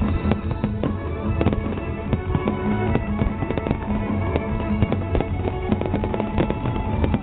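Festival fireworks exploding in rapid, overlapping bangs and crackles, with music playing underneath.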